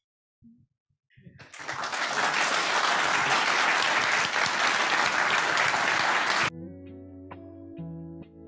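Audience applauding, which stops abruptly about six and a half seconds in. Quieter instrumental music with sharply struck notes follows.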